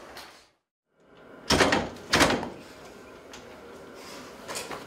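A brief drop to dead silence, then two sharp knocks about two-thirds of a second apart, followed by a few fainter ticks over low room noise.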